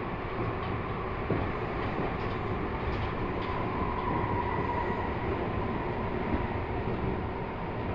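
Cabin running noise of a Tobu 50070-series electric train cruising between stations: a steady rumble of wheels and running gear, with a faint whine swelling and fading in the middle.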